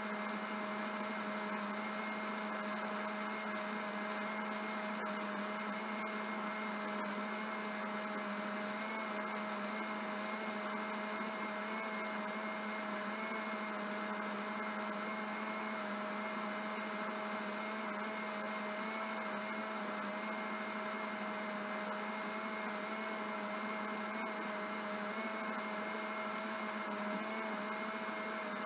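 Electric blender running steadily, blending fruit and water: an even motor hum with a slightly wavering whine above it.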